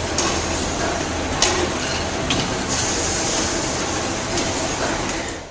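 Handle-riveting machine working on a cookware line, a few sharp clanks standing out over the steady noise of factory machinery.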